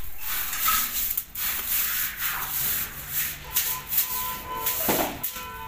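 A stiff stick broom sweeping a tiled floor, its thin ribs scraping across the tiles in repeated short strokes.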